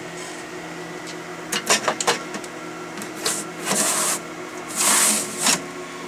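A blower module in its sliding metal tray being handled and pushed into a rack-mount server chassis: a few sharp metal clicks about one and a half to two seconds in, then several rasping metal-on-metal slides in the second half. A steady low hum runs underneath.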